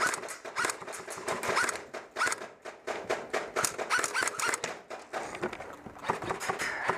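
Airsoft guns firing in a rapid, overlapping exchange: a fast, uneven run of sharp pops and clicks, easing briefly a few times.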